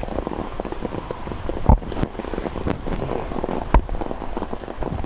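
Rain falling on an open umbrella held just above the microphone: a dense crackle of drops, with two louder knocks about two seconds apart.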